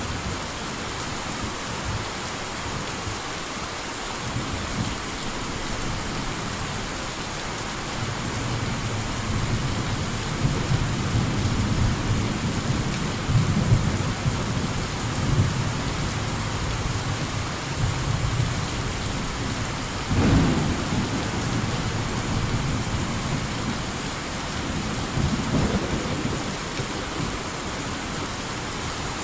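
Steady rain with rolling thunder. The rumbling builds through the middle, a sharper thunderclap comes about twenty seconds in, and a weaker one follows near the end.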